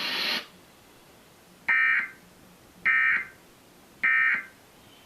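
Emergency Alert System end-of-message signal: three short, identical buzzy digital data bursts about a second apart. It is the coded tone that closes the broadcast alert.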